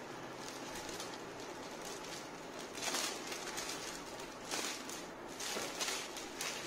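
Clear plastic packaging bag crinkling and rustling as it is handled, with louder crackles about three seconds in and again from four and a half to six seconds.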